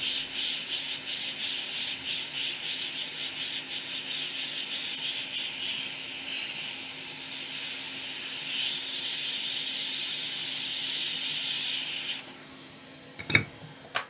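Hot air rework station blowing a hiss of hot air onto the flux-covered pins of a USB-C charging port to heat the board; the hiss wavers at first, then runs steady and cuts off about twelve seconds in. A sharp knock follows near the end.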